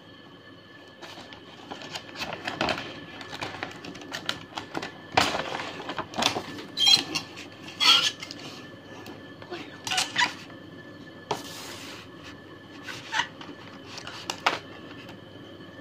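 Hard plastic clattering and clicking as a toy train set is unpacked by hand: a plastic tray and snap-together plastic track pieces knocking and being pulled out, with short bursts of packaging rustle in between.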